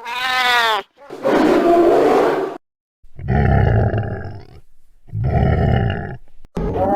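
Monster roar sound effects: a short howl that dips and then rises in pitch, followed by three separate deep, rough roars, each lasting one to two seconds.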